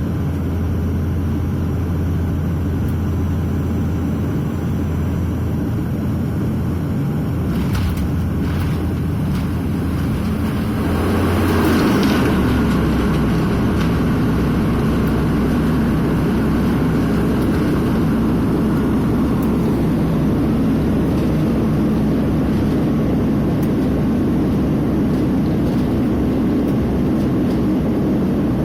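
Bombardier Dash 8 Q400 turboprop landing, heard from inside the cabin: a steady propeller drone, a few knocks about eight seconds in at touchdown, then from about twelve seconds the propeller tone drops and a louder rushing sound takes over as the propellers go to reverse on the rollout.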